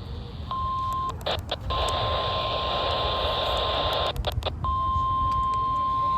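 NOAA Weather Radio warning alarm tone, a steady single tone of about 1 kHz heard over a weather radio, broadcast as a weekly test of the alarm. It starts about half a second in, cuts out twice in bursts of crackling static, and has a hiss over it between the two breaks.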